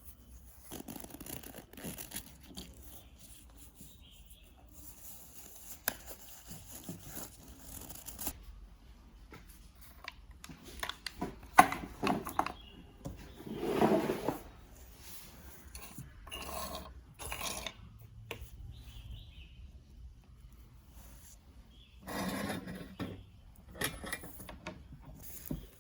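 Hand work on small parts: intermittent scraping and rubbing with scattered sharp clicks, louder in the middle and again near the end.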